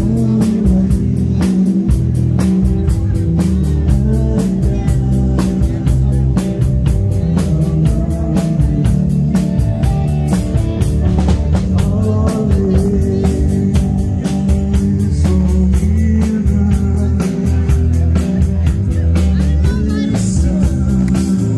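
Live rock band playing loud through the PA: electric guitar, bass guitar and drum kit keeping a steady beat.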